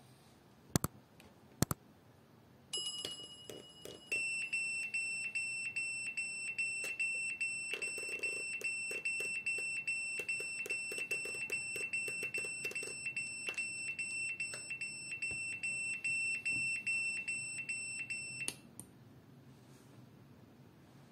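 Small 12 mm electronic buzzer on an Arduino rain alarm sounding a steady high-pitched tone, which signals that water on the rain sensor plate has set off the rain alert. It starts about three seconds in and cuts off suddenly near the end. Short clicks run under it, from the trigger of a hand spray bottle wetting the sensor.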